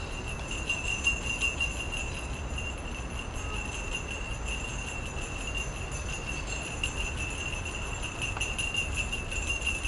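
Steady, high-pitched insect drone from the park's trees, shimmering rapidly and unbroken, over a low rumble.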